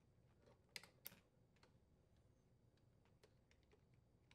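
Faint, sparse plastic clicks and ticks of wire harness connectors being handled and pushed onto the back of a refrigerator dispenser display control board, with two sharper clicks about a second in.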